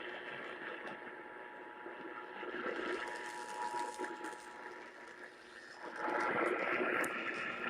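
Broadcast radio audio with hiss and static and a faint steady tone, the noise growing louder about six seconds in.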